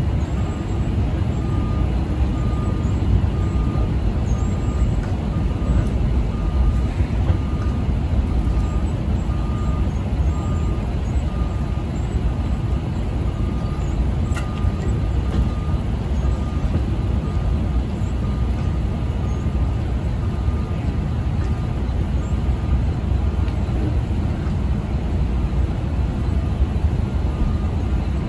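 Heavy truck's engine running with a steady low rumble as it moves the flatbed slowly, its backup alarm beeping about once a second. The beeping stops near the end, then starts again briefly.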